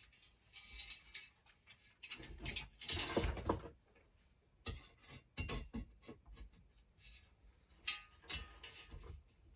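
Scattered clicks, taps and short scrapes of metal being handled while working on a stuck spoke of a vintage bicycle wheel that will not come out.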